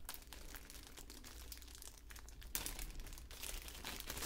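A thin clear plastic zip bag crinkling as hands open it and draw out a coiled power cord. There is a denser run of crinkles about two and a half seconds in.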